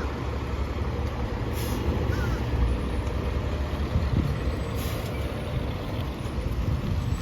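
Fire engine's diesel engine running with a steady low rumble, with short air hisses about one and a half seconds in and again near five seconds.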